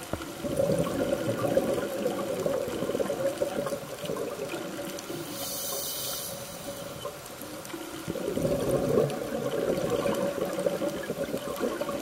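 Scuba diver breathing through a regulator underwater. There are two long exhalations of bubbling, and a short inhaled hiss between them about six seconds in.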